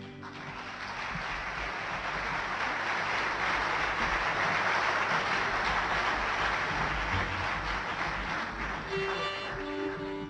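Concert audience applauding at the end of a song, swelling and then dying away. A few held instrument notes come in near the end.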